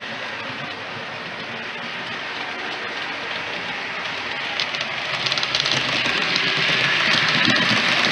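Model electric multiple unit train running along the track toward the listener, getting louder over the second half as it draws near. A rapid clicking clatter of its wheels comes in at about five seconds.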